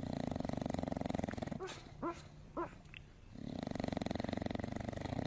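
Snoring: two long rattling snores, with a few short squeaky whistles between them.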